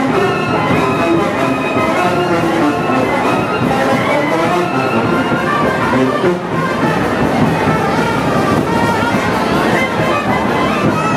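Loud band music playing without a break, brass to the fore.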